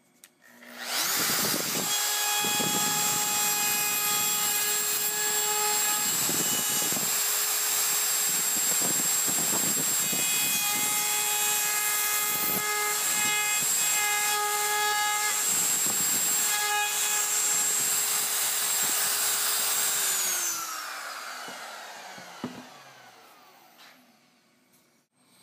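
Festool MFK 700 trim router starting up about a second in and running at full speed with a steady high whine, its bit cutting a protruding wooden plug flush with rougher grinding bursts now and then. Switched off about 20 seconds in, it winds down with falling pitch over a few seconds.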